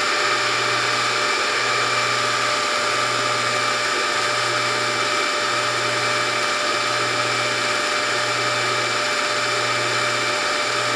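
Norwalk juicer's hydraulic press motor and pump running steadily as the press ram rises, a constant whine over a low hum that pulses about once a second.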